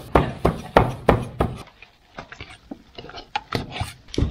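Cleaver chopping braised pork on a cutting board, about three quick strokes a second, stopping about a second and a half in. Then lighter taps and knocks as the cleaver scoops the chopped meat into a steel bowl.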